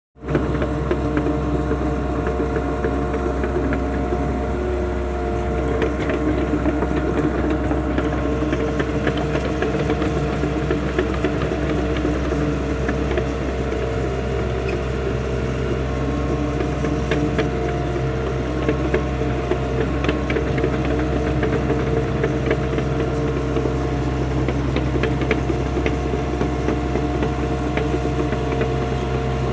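Mini excavator's diesel engine running steadily at an even speed, with scattered light clanks over it.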